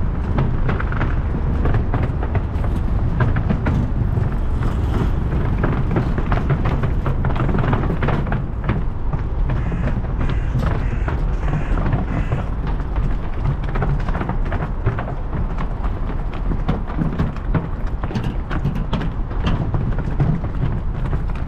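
A 2004 Cannondale F400 mountain bike rolling along a gravel towpath: the tyres crunch and the bike rattles, with a steady low rumble and a constant scatter of small clicks and knocks.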